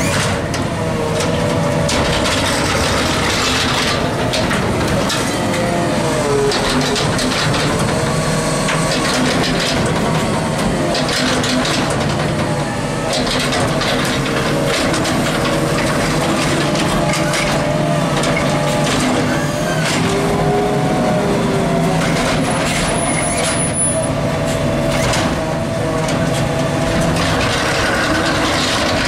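An Autocar ACX CNG garbage truck running steadily while the hydraulics of its McNeilus Zero Radius automated arm whine, the pitch shifting up and down as the arm grabs, lifts and dumps carts. Repeated knocks and clatter of carts and falling trash run through it.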